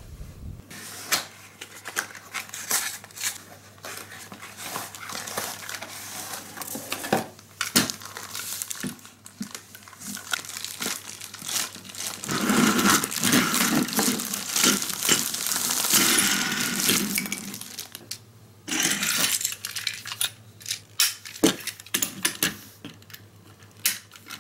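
Unboxing a Plarail toy train: a cardboard box and the clear plastic wrapping around the train's cars are handled and pulled open. Scattered clicks and scrapes throughout, with a longer stretch of plastic crinkling and rustling in the middle.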